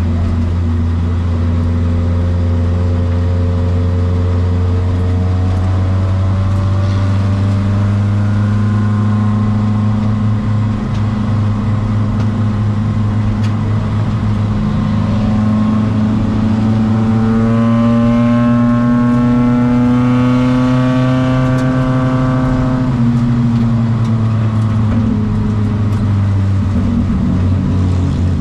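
Race car engine heard from inside the cabin, running hard under load lap after lap. Its pitch climbs steadily for several seconds past the middle as the car accelerates, then drops sharply about two-thirds of the way through when the driver lifts off.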